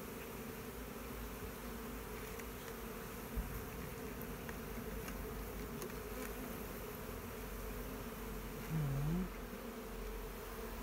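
A swarm of honeybees buzzing, a steady low hum of many wings. A single light knock comes about three seconds in, and a short low hum from a voice near the end.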